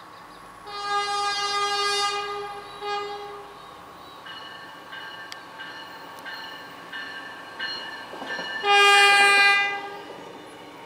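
Horn of a Stadler GTW diesel light-rail railcar sounding for a grade crossing: a long blast of about two seconds with a short toot after it, then a second, louder blast about a second long near the end. Between the two blasts a crossing bell dings about every two-thirds of a second.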